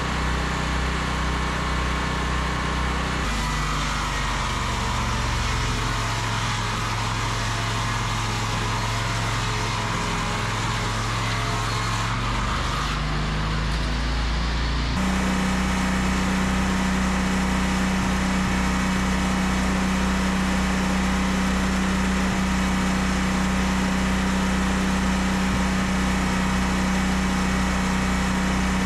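Wood-Mizer LT40 sawmill's engine running steadily, its hum changing pitch abruptly about three seconds in and again about halfway through.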